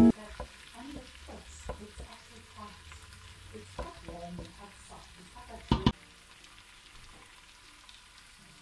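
Wooden spoon stirring chicken pieces and diced tomatoes in a stainless steel pot over a light sizzle, with scattered small scrapes and clicks. Two sharp knocks come close together about six seconds in, after which only a faint sizzle is left.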